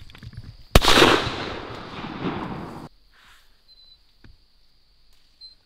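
A single shotgun blast about a second in, its echo ringing out for about two seconds before cutting off abruptly; faint small ticks follow.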